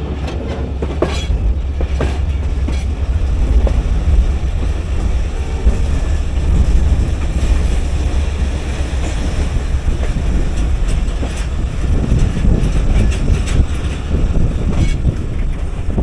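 A passenger train running on the rails: a steady low rumble with wheels clacking now and then over rail joints and points.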